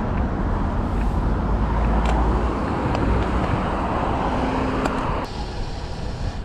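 Steady rushing wind and road noise on an action camera's microphone while riding a road bike. About five seconds in, the noise drops suddenly to a quieter hiss.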